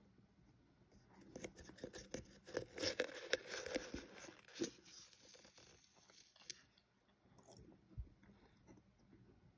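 A spoon digging into and packing powdered cornstarch in a tub, giving a dense run of soft crunching that starts about a second in, is loudest around three to four seconds and fades as the scoop is lifted, with one light knock near the end.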